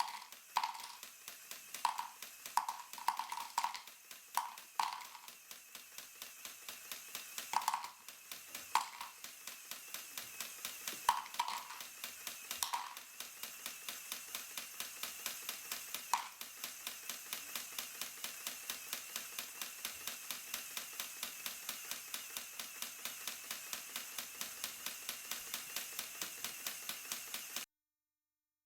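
LEGO Technic rock crusher model running on its single Powered Up motor: a steady, rapid ticking of plastic track links on the conveyors, about four or five a second. Louder, irregular plastic clacks, plenty in the first half and fewer later, sound like small round bricks dropping through the sorter. The sound cuts off suddenly near the end.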